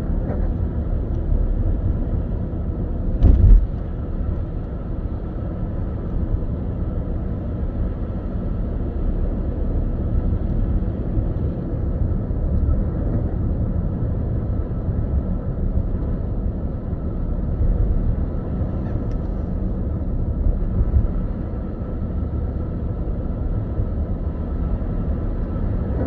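Steady low rumble inside a moving car's cabin as it drives on a snow-covered road, with one brief thump about three seconds in.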